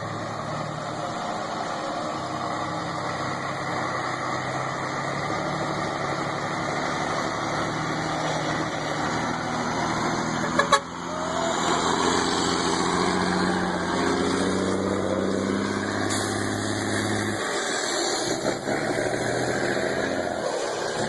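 Heavy vehicle engines running steadily, with a sharp knock about ten seconds in.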